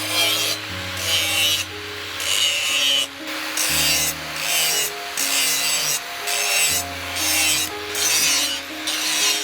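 Hand file scraping back and forth in even strokes, about one a second, over background music.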